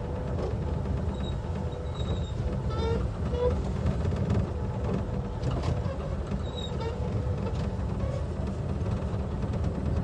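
Children's tractor ride car running along its course: a steady low rumble, with a faint steady whine through the first few seconds.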